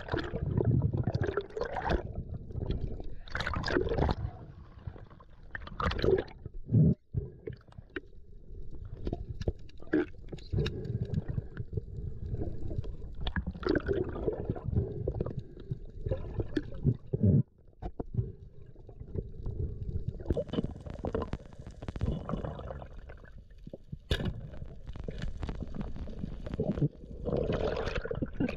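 Water gurgling and sloshing around a submerged action camera, in uneven surges with a few sharp splashes.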